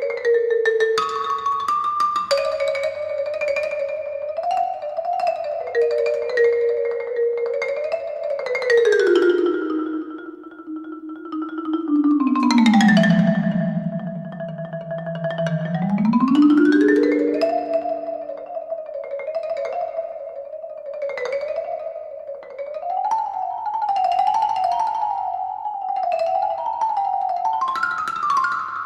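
Background music with a bouncy melody; about halfway through the tune slides steadily down in pitch, holds low, then climbs back up.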